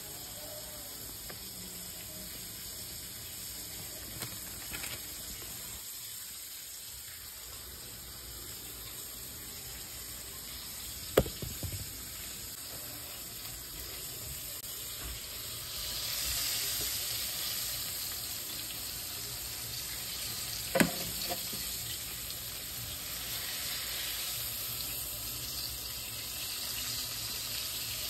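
Handling a Cosori air fryer's basket while chicken tenders go in: a steady hiss, two sharp clacks about eleven and twenty-one seconds in, and from about sixteen seconds a brighter, louder sizzling hiss.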